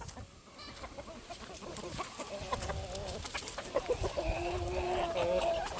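Chickens clucking, with scattered short calls and a longer held call starting about four seconds in.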